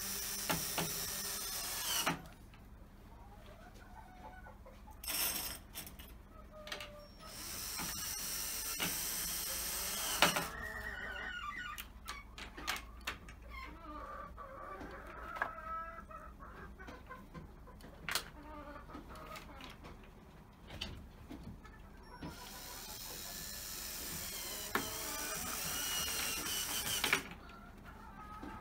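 Cordless drill driving screws into a wooden coop door frame in several runs: one at the start, two short bursts around five to seven seconds, a longer one at about eight to ten seconds, and a long run near the end. Chickens cluck in the gaps between.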